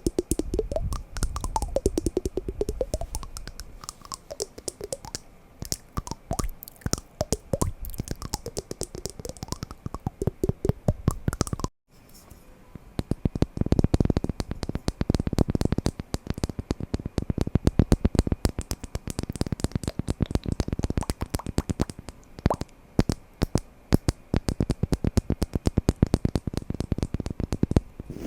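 Wooden blocks being knocked and tapped together in fast, uneven runs of sharp, hollow clicks, several a second, broken by a brief silent gap about twelve seconds in.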